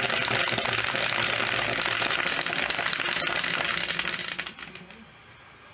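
Two dice rattling fast inside the clear plastic dome of an automatic dice shaker, a steady buzzing clatter with many small clicks, which stops about four and a half seconds in.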